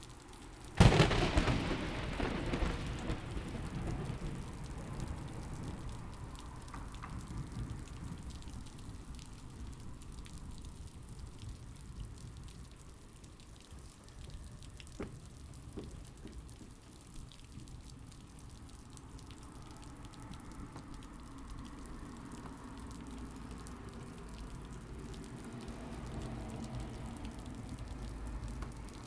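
Thunderstorm: a sharp thunderclap about a second in that rolls away over several seconds, then steady rain with low rumbling that swells again near the end.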